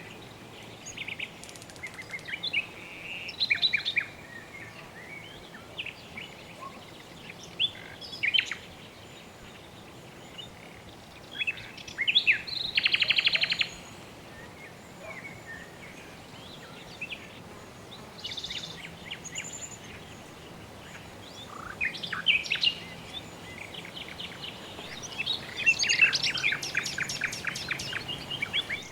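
Several birds chirping and calling in short, high phrases, with a fast trill about halfway through and a busier stretch of calls near the end, over a faint steady background hiss.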